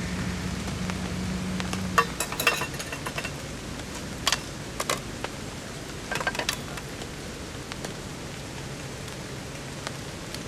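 Steady rain, with a handful of sharp metallic clicks and clinks from cooking gear being handled, about two to seven seconds in.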